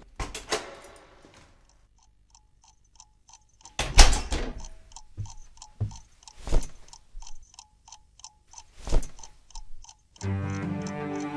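A clock ticking evenly, about three ticks a second, broken by three heavy booming hits about two and a half seconds apart. Low bowed strings start near the end.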